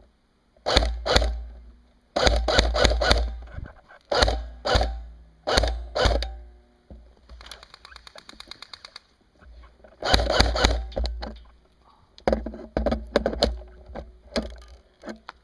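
G&G Combat Machine airsoft electric rifles firing: clusters of rapid sharp shots, each with a heavy thump. A quieter continuous full-auto burst, a fast even rattle, runs for about two seconds in the middle.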